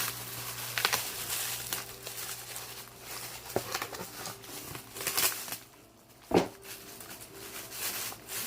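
Packaging being handled and unwrapped, with irregular rustling and crinkling, and a single knock about six seconds in.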